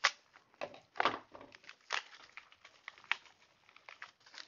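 Small plastic bag of mounting hardware crinkling and rustling as it is cut open with a pocket knife, with irregular sharp clicks and short crackles.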